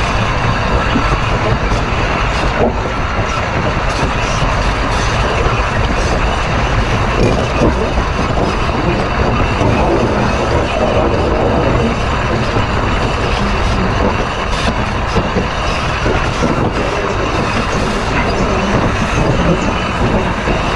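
Steel driving wheels of D&RGW 491 rolling on the rail of a continuous curve, heard close up at the fourth driver: a loud, steady rolling grind with scattered clicks.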